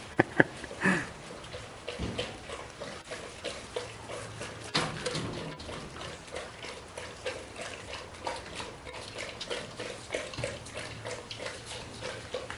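Two-month-old Doberman puppies at play: a few sharp knocks in the first second, then scattered claw clicks and paw scuffles on a board platform and sand.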